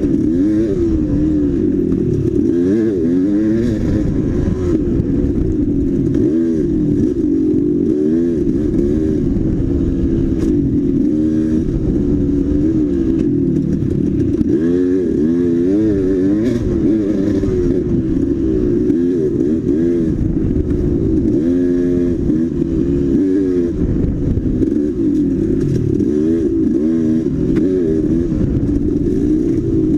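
Dirt bike engine ridden off-road, its pitch rising and falling every second or so as the throttle opens and closes, with an occasional click or clatter.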